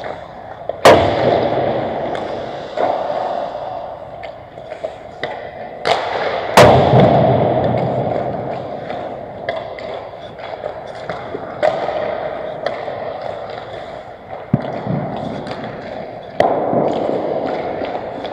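Pickup ice hockey in an indoor rink: several sharp bangs of pucks and sticks striking the boards and ice, the loudest about a second in and about six and a half seconds in, each ringing out in the arena's echo, over a constant hiss of skates and play.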